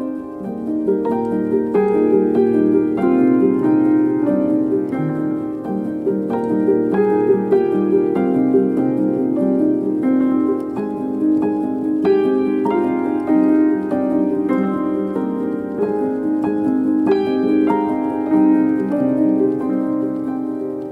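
Background piano music, a run of struck notes over sustained chords.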